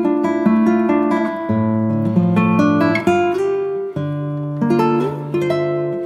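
Background music: an acoustic guitar playing a picked tune, one plucked note after another.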